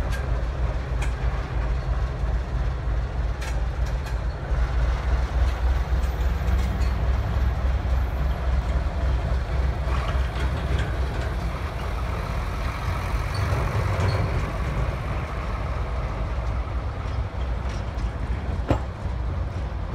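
ČME3 diesel shunting locomotive running with a deep, steady engine rumble as it moves away along the track, with a few sharp clicks scattered through.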